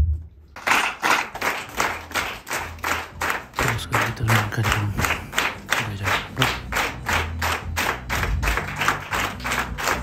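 Audience clapping. It starts about half a second in and keeps a fairly even beat of about four claps a second.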